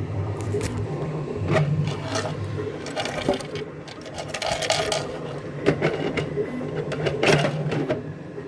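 3D printers running: stepper motors buzzing steadily, with irregular clicks and short rattling moves of the print heads.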